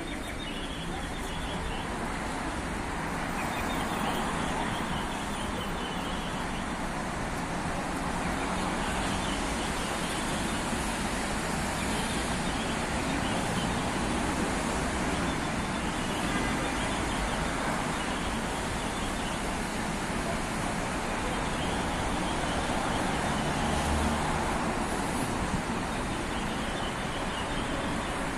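Steady city street traffic noise: cars and buses passing on a wet road.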